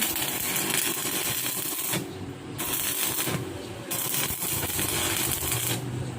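Stick (arc) welding crackling and hissing on the gate's steel, in runs broken by short pauses where the arc is stopped, about two, three and a half, and six seconds in.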